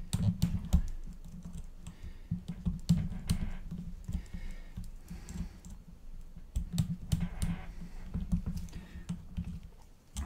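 Small parts of a carbon-fibre quadcopter frame being handled and fitted by hand: irregular light clicks and taps, with dull bumps against the bench and a little scraping.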